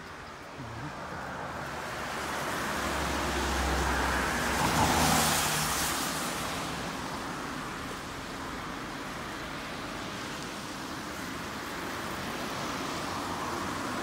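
A car passing on a wet road: engine and tyre hiss swell to a peak about five seconds in, then fade away. Another car approaches near the end.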